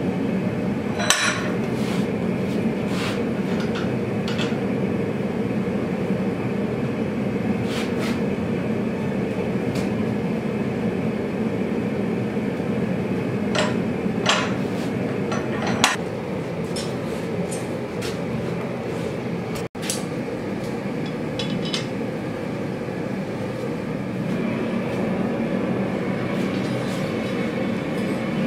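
Propane gas forge burner running with a steady rushing noise, with a few scattered metallic clinks of tongs and steel.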